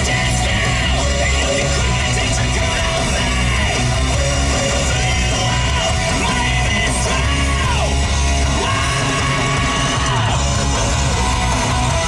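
Loud rock music with a yelled, shouted-sounding vocal line.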